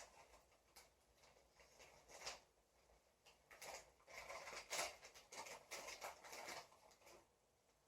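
Faint rustling and light clicks of small items and packaging being handled during an unboxing, busiest in the second half.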